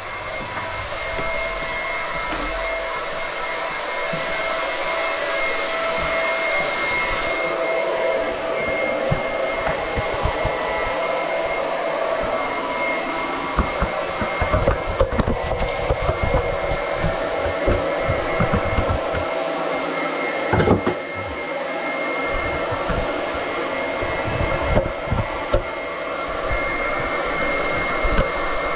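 A small electric motor runs steadily with a whining hum. From about halfway through, irregular knocks and rattles come over it as fittings and parts are handled on top of the water heater.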